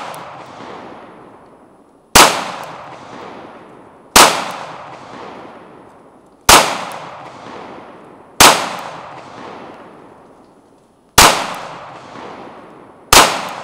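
FN 509 Tactical 9mm pistol fired in slow aimed single shots, six shots about two seconds apart, each sharp crack followed by a long rolling echo.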